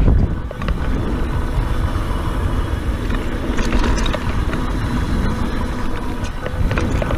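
Ride noise from a Scott Genius full-suspension mountain bike on a packed-dirt trail: wind buffeting the camera microphone with a steady low rumble, tyres rolling on dirt, and scattered clicks and rattles from the bike.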